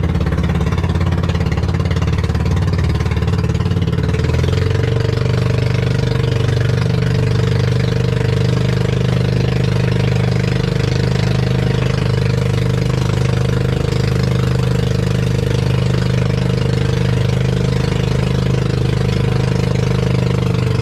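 Small fishing boat's engine running steadily while under way, with wind and water hissing against the hull.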